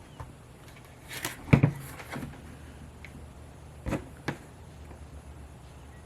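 Handling noise from meter probes and a drone battery: a cluster of clicks and knocks about a second in, then two more sharp knocks about four seconds in.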